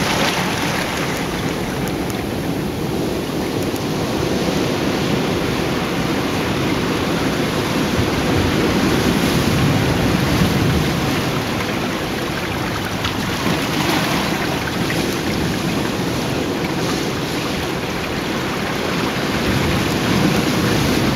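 Ocean surf breaking and churning among shoreline rocks: a continuous rush of whitewater that swells louder about halfway through and again near the end.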